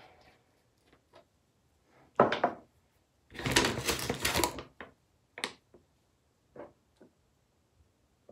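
Handling noises of small makeup containers: scattered clicks and taps of caps and bottles, a sharp knock a couple of seconds in, and a louder rustling scrape lasting about a second at mid-point.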